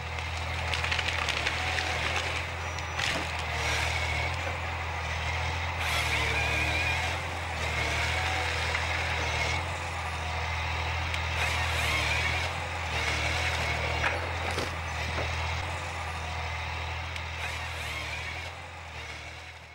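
Forestry harvester at work: its diesel engine runs steadily under load, with a high wavering whine coming and going and occasional sharp knocks.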